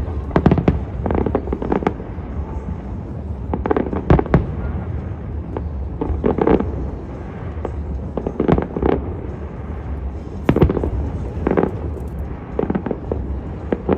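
Aerial firework shells bursting in a continuing series: sharp booms and cracks come every second or two, often in quick clusters, over a steady low rumble.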